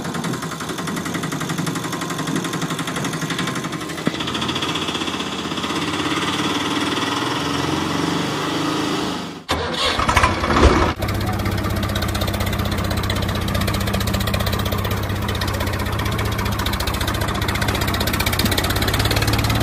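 Engine sounds: a rattling engine running through the first half, then an abrupt break about halfway through with a short louder burst as a tractor engine starts. After that a tractor engine runs steadily with a low, even thrum.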